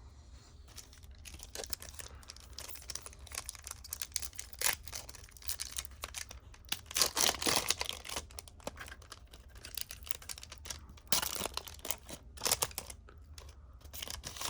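Crinkling and tearing of a foil trading-card pack wrapper being handled and opened, in several short irregular bursts.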